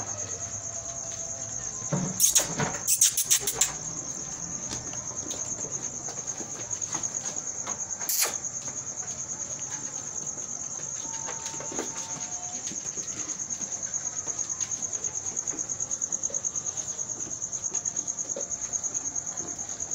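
Crickets chirping in a steady, high, rapidly pulsing trill, with a few sharp knocks and rattles about two to three and a half seconds in and again around eight seconds.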